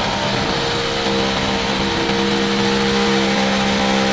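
A motor running steadily at a constant pitch, with a steady hiss over it.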